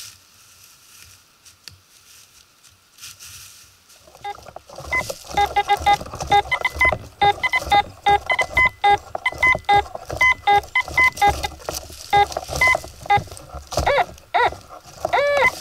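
Metal detector signalling targets as its search coil sweeps over the forest floor: after about four seconds of near quiet, a rapid run of short beeps at a low and a high pitch, then near the end a few longer tones that swoop up and down in pitch.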